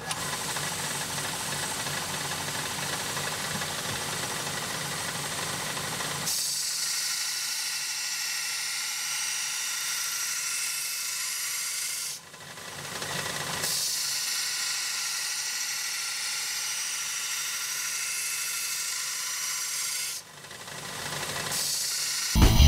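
A small vertical belt grinder starts up and runs with a steady whine. From about six seconds in, hardened high-carbon steel pressed against the belt adds a loud, hissing grind as the bevel is ground. The grinding breaks off briefly twice, around twelve and twenty seconds in.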